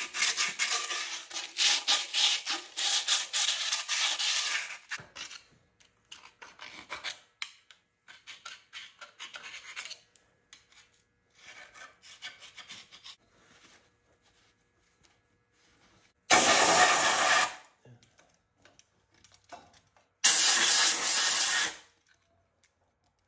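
Fine sandpaper rubbing by hand inside the sleeve bores of a Continental Z134 engine block, cleaning the seats where the wet cylinder liners go. Quick strokes are loud for the first five seconds, then fainter and broken. Two loud steady hisses of about a second and a half each follow in the second half.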